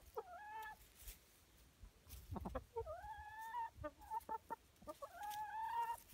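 Hens making drawn-out, content trilling calls (three long ones, near the start, middle and end) with a run of short clucks in between while feeding. A brief low thumping sounds about a third of the way in.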